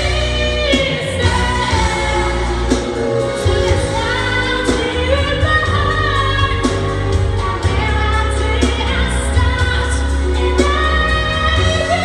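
Teenage girl singing a slow pop ballad in English over an instrumental accompaniment, holding long, gliding notes.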